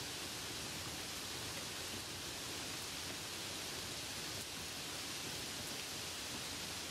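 Steady light rain: an even, unbroken hiss with no separate drops standing out.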